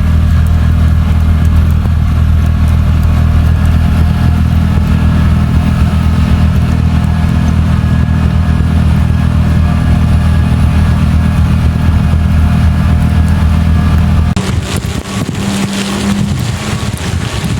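An engine running steadily at a constant speed. About fourteen seconds in, it cuts off abruptly and gives way to rough, gusty wind noise on the microphone.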